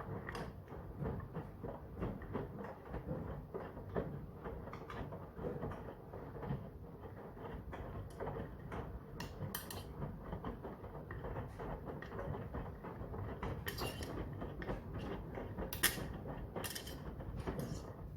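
Brandt washing machine in its cotton 40 °C wash, the drum turning the laundry with steady mechanical noise and repeated creaks and clicks.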